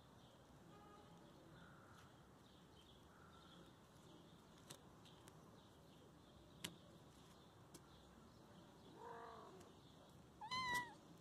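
Kittens meowing: a few faint mews early on, one mew about nine seconds in, and a louder, high, wavering mew near the end. There are a couple of sharp clicks in between.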